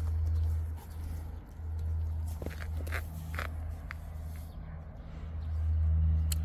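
A low rumble that swells and fades several times, with a few light clicks and scrapes around the middle as gloved hands dig into loose garden soil.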